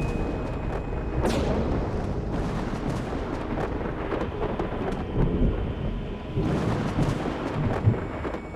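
Thunderstorm noise: a steady low rumble of thunder and wind with a hiss of rain, swelling irregularly louder. A brief falling whoosh comes about a second in.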